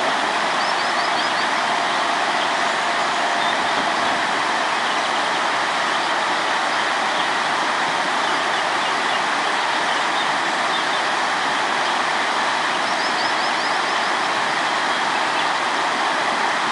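Steady rush of flowing river water, with a small bird's short runs of high chirps near the start and again near the end.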